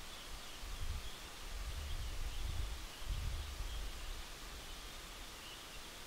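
Outdoor ambience: wind rumbling on the microphone in uneven gusts, easing off about four seconds in, over a faint steady hiss.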